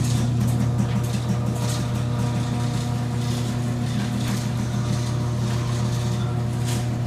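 Car engine running steadily, a constant low drone with no change in pitch.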